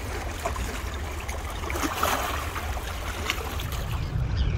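Steady wind rumble on the microphone over moving water at the waterside, with a few scattered small clicks; bird calls begin right at the end.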